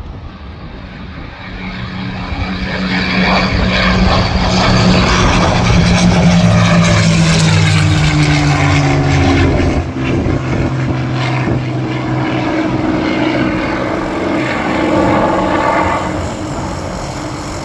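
P-51 Mustang's V12 engine and propeller running at climb power as the fighter flies away after takeoff. It grows louder from about a second in and is loudest for several seconds as it passes, its hum slowly falling in pitch, then eases off a little toward the end.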